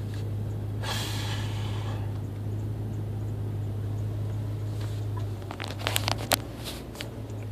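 A man hiccuping inside a truck cab: a breathy noise about a second in, then a cluster of short, sharp hiccup sounds about six seconds in, over a steady low hum.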